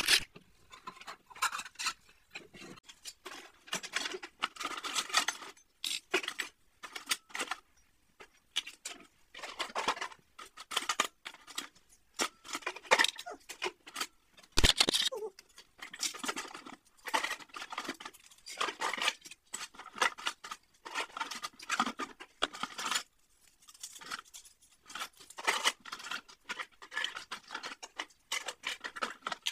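Kitchenware being handled and lifted out of a plastic tub: an irregular run of clattering and rustling, with scattered knocks of plastic and crockery and one sharper knock about halfway through.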